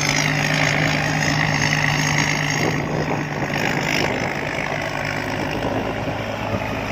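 Somboon Pattana combine harvester's engine running steadily, its low hum dropping in pitch about five seconds in. A high whine falls in pitch over the first second and fades out by about three seconds in.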